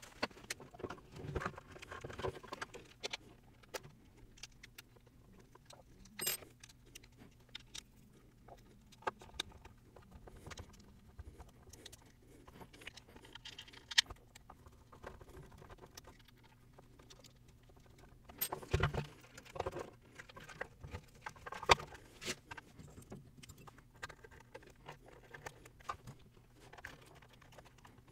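Scattered clicks, taps and knocks of hands handling and fitting 3D-printed plastic parts and small screws, with a louder cluster of knocks about two-thirds of the way through.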